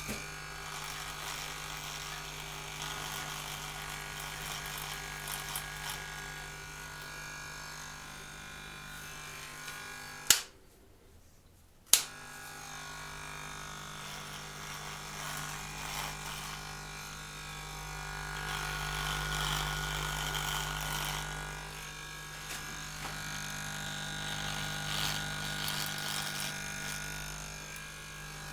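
Electric shaver motor buzzing steadily. It is switched off with a sharp click about ten seconds in, goes quiet, and is switched back on with another click about a second and a half later.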